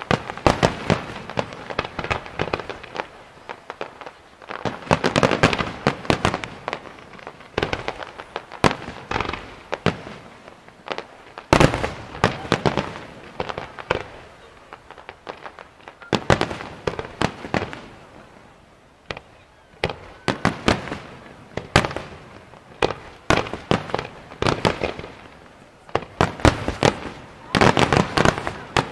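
Fireworks display: aerial shells and ground-fired effects bursting in rapid clusters of sharp bangs and crackles, with short lulls between the volleys.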